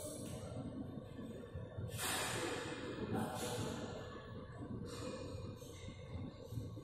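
Close, breathy exhalations of the person holding the camera, three breaths about a second and a half apart, over a low steady rumble of background noise.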